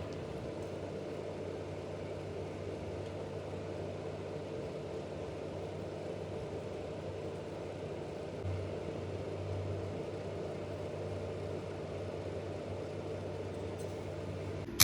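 A steady low machine hum running evenly, a little louder for a second or two about eight and a half seconds in.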